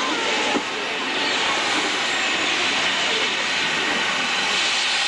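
Steam locomotive No. 90 venting steam while standing, a steady, even hiss. Faint voices sound under it near the start.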